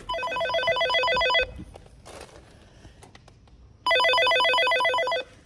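Apartment door intercom panel sounding its electronic call tone: two fast-pulsing rings, each about a second and a half long, the second starting about four seconds in. It is calling a flat upstairs to open the electric door.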